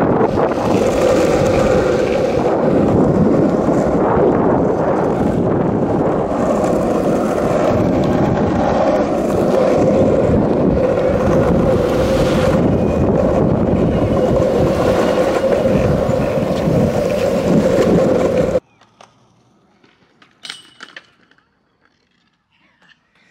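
Skateboard wheels rolling fast over asphalt, a loud, steady rumble with a steady drone, cutting off suddenly about eighteen seconds in, leaving near quiet with a couple of faint clicks.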